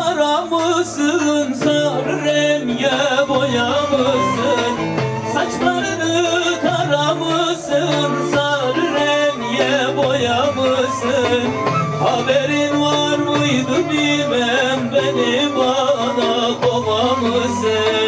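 Folk-style music with a singing voice and instruments, at a steady loud level.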